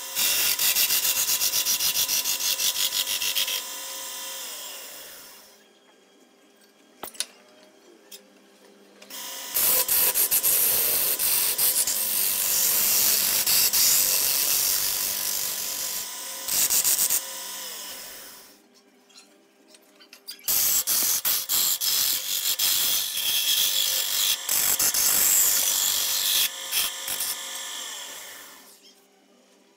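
Wood lathe turning a large hardwood blank, with a turning tool scraping the spinning wood in three long stretches of harsh hissing. Between them the cutting stops and the lathe's hum winds down to near quiet twice.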